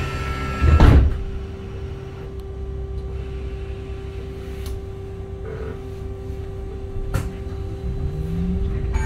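Cabin of a VDL Citea SLF 120 Electric bus: the electric drive system hums a steady tone, with a heavy thump about a second in and a few light clicks. Near the end the electric traction motor's whine starts rising in pitch as the bus accelerates.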